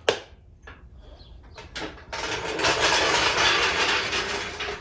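Compressed air hissing steadily into a car tyre through an air chuck for about two and a half seconds, starting about two seconds in, after a couple of sharp clicks; the tyre is being topped up because it is low.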